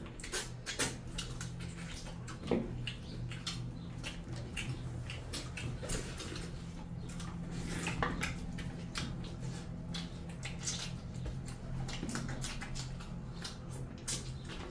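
Two people eating by hand: wet chewing and smacking, and fingers squishing rice and curry against steel plates, a steady run of small clicks and squelches with a few louder ones. A steady low hum sits underneath.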